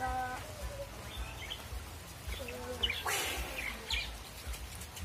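Birds chirping with scattered short calls.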